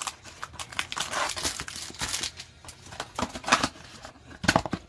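A cardboard trading-card hanger box being torn open by hand and the wrapped stack of cards pulled out: an irregular run of crackles and rips of cardboard and plastic wrapper, with a few louder snaps near the end.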